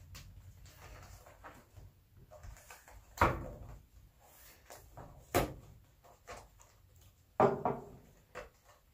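Sealed plastic ammunition battle pack being handled and cut open with a knife: crinkling and rustling of the thick plastic, with three louder sharp crackles about three seconds in, about five seconds in, and near the end.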